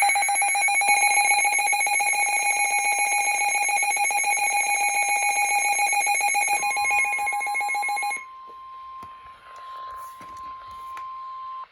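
Emergency alert tones: a loud, pulsing electronic alarm beeps for about eight seconds. Near the end it overlaps with a steady single-pitch alert tone, the weather-service warning tone, which carries on alone for about three more seconds and cuts off suddenly.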